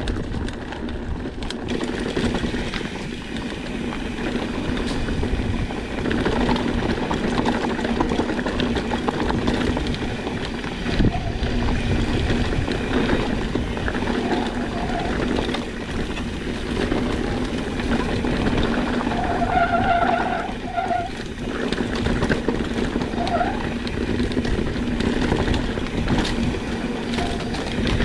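Mountain bike descending a rocky trail at speed: a continuous rumble and rattle of tyres and bike over rock, with a few brief squeaks about two-thirds of the way through.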